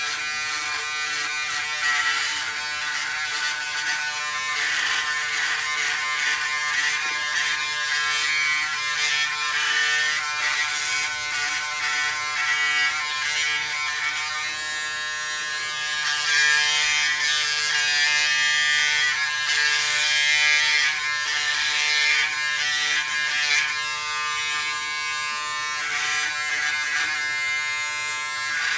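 Braun Series 7 360 Flex electric shaver running steadily as it is moved over neck stubble: a constant motor hum with the scratchy crackle of a couple of days' whiskers being cut, louder and rougher for a stretch about halfway through.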